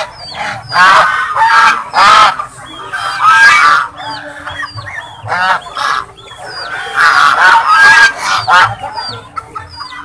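A group of white domestic geese honking over and over, loud calls coming in quick clusters with short pauses between them.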